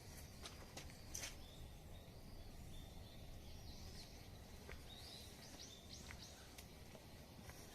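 Faint outdoor ambience: small birds giving short, scattered chirps over a low steady rumble, with a few sharp clicks or snaps.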